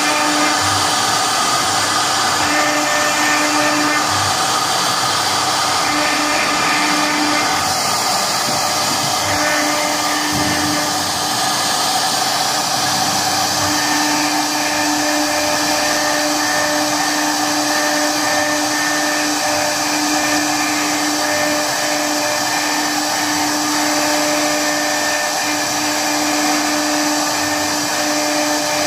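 CNC router spindle running and routing grooves into an MDF sheet: a loud, steady machine whine over the noise of the cut, with a constant hum under it.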